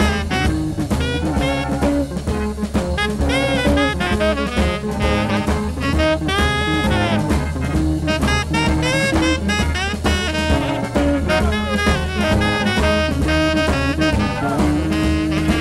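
Small jazz band playing a boogie-woogie swing number live: horns playing sliding, bending riffs over steady bass and drums.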